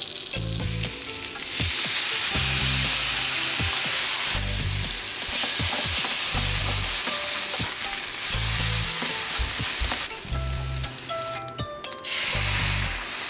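Yakisoba frying in a hot pan, sizzling loudly while it is stirred with small scrapes and clicks. The sizzle swells about a second and a half in, eases off near ten seconds and rises again near the end.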